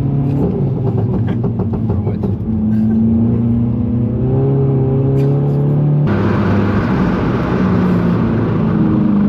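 Polo GTI's engine pulling hard under load, its pitch climbing steadily, then changing abruptly about six seconds in, as at a gear change. A short run of rapid crackles comes in the first couple of seconds.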